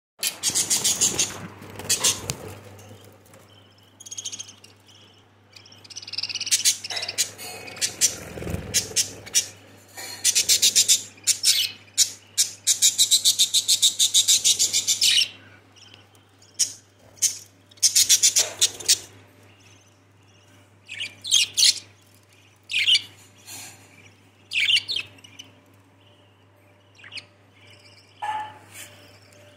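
Budgerigars chirping at the nest, in short bursts broken by a few longer runs of rapid chirps, over a faint steady low hum.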